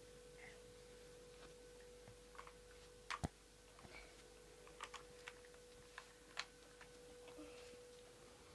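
Scattered faint clicks and knocks of large plastic building blocks being handled and pushed about, the loudest a quick pair about three seconds in. A faint steady hum runs underneath.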